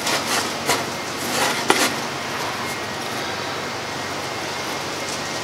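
A few light knocks and clicks in the first two seconds as bent steel rods are handled and set down on a cardboard template over a steel bench, then a steady hiss of background noise.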